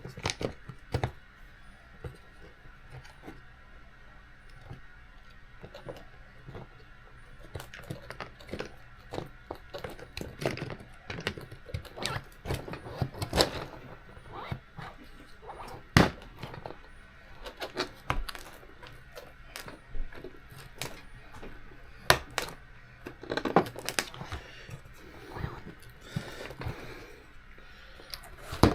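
Small plastic and metal RC car parts and tools clicking, tapping and knocking on a workbench as a 1/18-scale RC car is assembled by hand. The handling sounds are sparse at first and grow busier and louder about a third of the way in.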